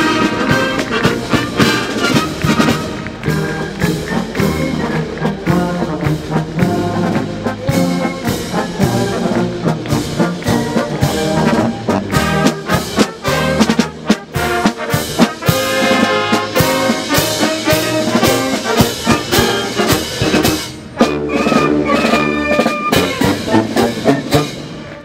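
Military marching band playing a march: trombones, trumpets and sousaphones over steady snare drum strokes.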